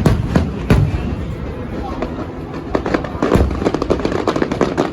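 Fireworks display: several loud shell bursts in the first second and another about three and a half seconds in, with rapid crackling from about three seconds on.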